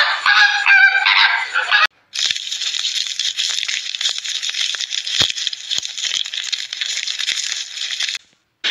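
A flock of flamingos honking for about two seconds, then, after a brief break, a steady dry hiss dotted with many small clicks and ticks.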